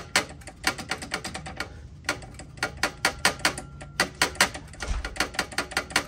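Stock muffler on an Indian Scout Rogue being rocked back and forth by hand, clacking metal on metal in quick runs of several clicks a second with short pauses between. The clamps and bolts are undone and the muffler is working loose from the exhaust.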